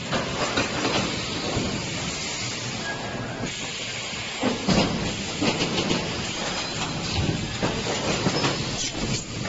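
3D EPS wire mesh panel welding machine running: a steady hiss with irregular metallic knocks and clatter, louder for a moment about halfway through.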